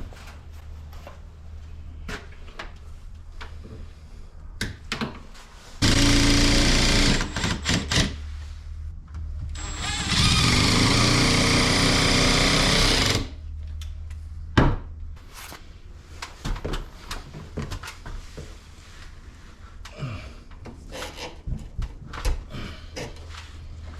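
A power tool runs in two bursts, about a second and a half and then about three seconds long, with scattered clicks and knocks of tool handling before, between and after.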